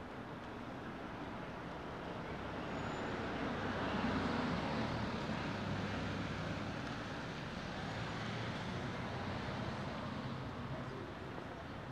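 Road traffic: a motor vehicle passing along the street, its sound swelling to a peak about four seconds in and then fading slowly.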